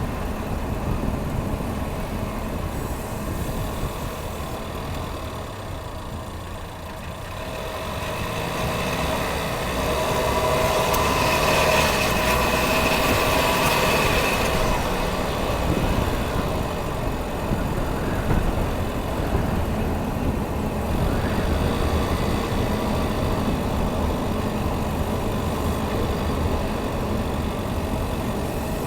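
A 2019 Chevy Equinox running with a steady low rumble. About a third of the way through it grows louder for several seconds, and a whine of several steady tones rises over the rumble before fading back.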